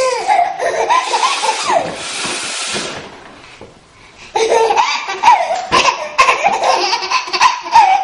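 A woman blowing her nose loudly for the first few seconds. After a short pause, a baby bursts into belly laughter from about four seconds in.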